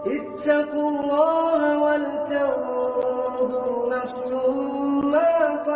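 Quran recitation by a male reciter in the slow melodic style, drawing out long held notes and sliding between pitches.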